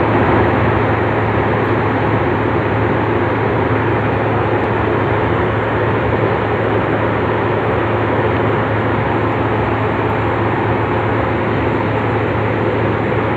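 Steady cabin noise of an aircraft in flight: unbroken engine and air rush with a constant low hum.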